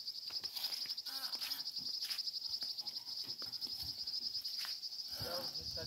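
Steady, high-pitched, pulsing chorus of insects, with a few short knocks and scrapes scattered through it.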